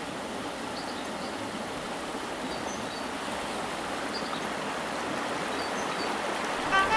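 Steady rushing noise of running water, like a stream, growing slightly louder toward the end, with faint short high chirps now and then.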